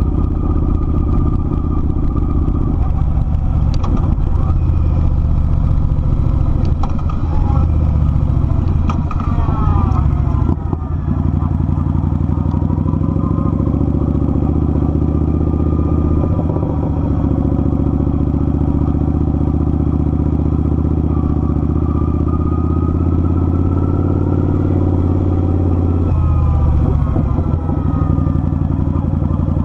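Kawasaki Vulcan 900's V-twin engine running steadily while riding, its pitch rising twice as it speeds up and briefly dropping between.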